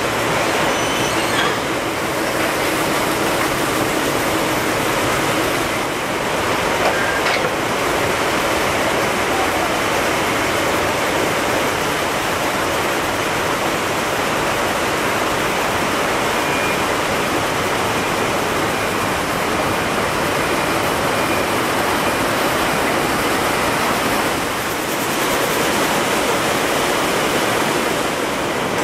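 Steady, dense din of textile mill machinery running on the factory floor.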